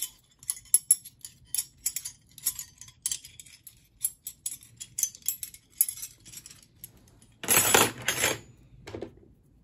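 Steel offset ring spanners clinking and jangling against each other as they are handled, then a louder clatter of metal tools about seven and a half seconds in.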